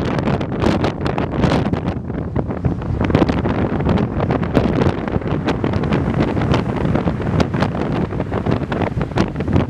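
Strong wind buffeting the microphone with a steady low rumble, over waves washing onto a shingle beach, with many short crackling clicks through it.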